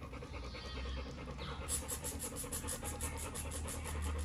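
A pit bull panting quickly with its mouth open, about five breaths a second, the breaths growing plainer about two seconds in. It is just catching its breath.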